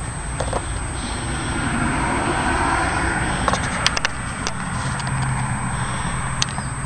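A car's steady low hum, with a swell of noise around the middle and a few sharp clicks.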